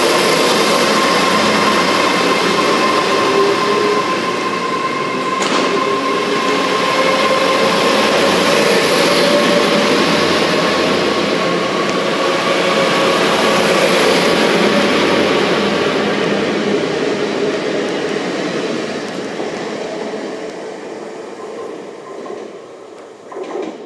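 Nine-coach Great Western Railway Intercity Express Train running close past the platform as it pulls out, with a steady whine that rises slowly in pitch as it gathers speed. The sound fades over the last several seconds as the train draws away.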